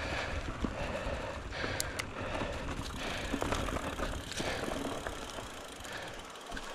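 Votec 29er mountain bike ridden over a rough dirt trail: tyre noise on the ground with scattered clicks and knocks as the bike rattles over bumps, and a low rumble that eases off near the end.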